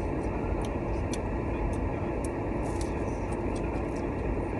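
Steady rumble and hiss inside a car's cabin, with a few faint light ticks.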